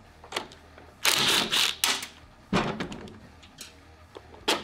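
Cordless impact driver rattling for just under a second, about a second in, as it zips out one of the 10 mm bolts on a Predator 212 engine's air-filter housing. Then come a few sharp clicks and knocks of tool and plastic parts being handled.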